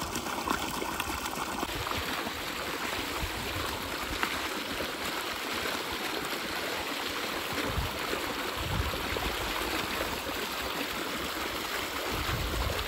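Water gushing steadily from a pump's outlet pipe and running along an irrigation channel, flowing strongly now that the broken pipes have been replaced.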